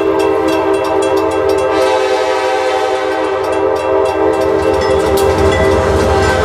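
A loud train whistle blast: one steady chord of several notes held for about six seconds, cutting off shortly before the end, over train rumble and rattling that grows in the second half.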